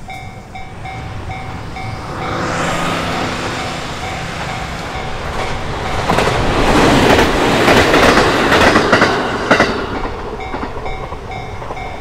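A Japanese level-crossing warning bell rings in a steady repeating ding while a JR Chuo Line electric train approaches and passes. The train's rumble builds and is loudest in the middle, with wheels clacking over rail joints near the end.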